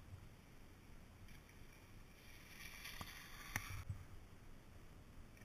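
Near silence: faint, muffled background hiss with two small clicks, about three and three and a half seconds in.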